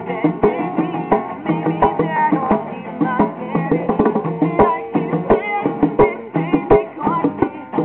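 Live acoustic band performance: strummed acoustic guitar with steady hand percussion and a wavering melody line over it.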